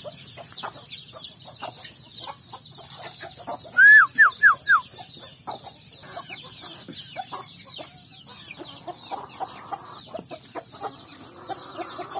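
Free-range domestic chickens foraging: soft hen clucks and many small chick peeps. About four seconds in come four loud, quick falling calls, the loudest sound here.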